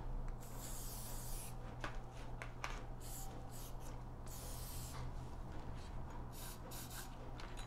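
Aerosol can of Ballistol cleaner hissing in several short spray bursts, with a few light clicks of handled metal parts between them.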